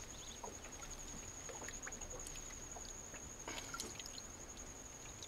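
Faint trickling and dripping water, with a few small splashes about three and a half seconds in, over a steady high-pitched insect trill.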